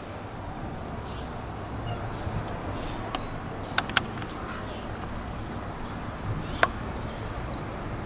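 Outdoor garden ambience: a steady low rumble with brief high bird chirps now and then, and three sharp clicks, two close together around the middle and a louder one a few seconds later.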